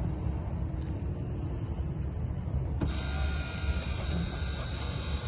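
A Toyota Prius being switched on: a steady electric whine with several high tones starts suddenly about three seconds in, over a low rumble.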